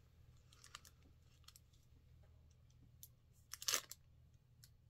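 Faint crinkling and small clicks of plastic packaging and a plastic phone holder being handled, with one louder rustle about three and a half seconds in.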